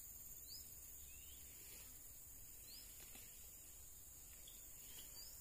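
Faint outdoor ambience: short rising bird chirps, one every second or two, over a steady high hiss.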